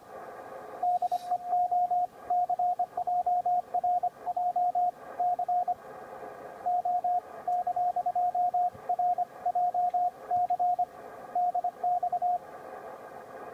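Morse code (CW) signal received on the 160 m amateur band through a Yaesu FTDX1200 transceiver: a single tone keyed in dots and dashes over steady band hiss, with a short pause about six seconds in, stopping about a second before the end.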